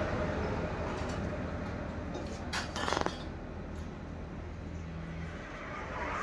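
Electric potter's wheel humming steadily as it spins a clay pot, with a short run of sharp clinks about two and a half seconds in.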